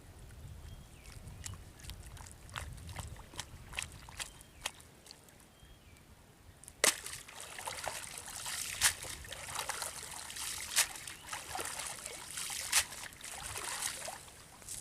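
Water dripping and trickling, then a sudden sharp splash about seven seconds in, followed by several seconds of spattering and sloshing water with a few sharper splashes.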